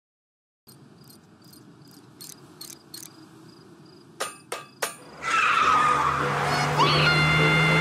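Crickets chirping in a quiet night ambience, with a few sharp metallic clicks from a wrench turning, three of them loud about four seconds in. About five seconds in, a much louder cartoon van sound effect cuts in: a vehicle running with squealing tones over it.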